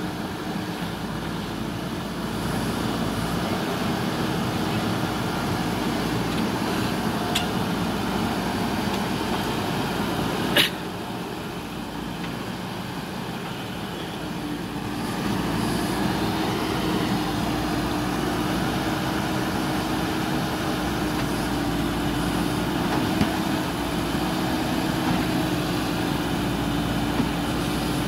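JCB 3DX backhoe loader's diesel engine running steadily under load as the machine works through deep mud, getting louder about halfway through. A single sharp knock about ten seconds in.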